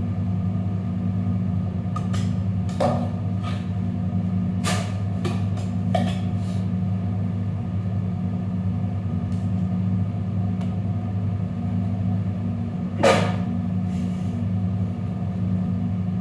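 Steady low mechanical hum from a motor or appliance, with a few sharp clicks and taps scattered through it, the loudest about thirteen seconds in.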